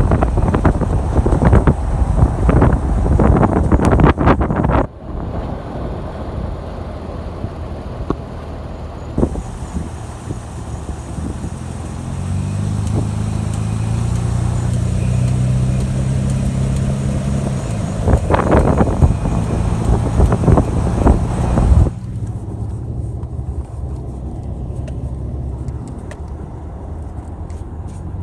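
2005 Toyota Tacoma pickup running with a weird grinding noise. Loud, rough, grating stretches come in the first five seconds and again around 18 to 22 seconds. Between them is a steadier rumble with a low droning tone, and after about 22 seconds it settles to a quieter, steady rumble.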